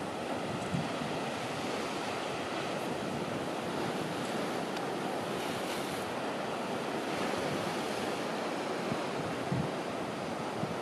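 Surf washing and breaking against a rocky shore under a steady wind, with a couple of low wind buffets on the microphone, one near the start and one near the end.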